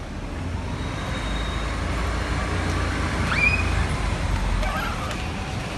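Low rumble of road traffic that swells through the middle and eases off near the end, with a short high rising squeal about three seconds in.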